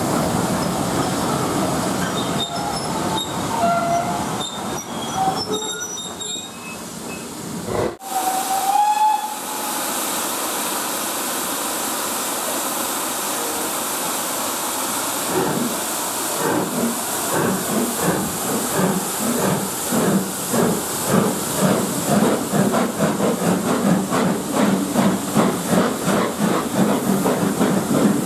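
A train of coaches rolls past with wheel noise and thin flange squeals, and a brief whistle sounds about a third of the way in. Then steam hisses steadily, and from about halfway the double-headed steam locomotives, a BR Standard Class 4 4-6-0 and a Midland 4F 0-6-0, pull away with regular exhaust chuffs that grow louder and quicker.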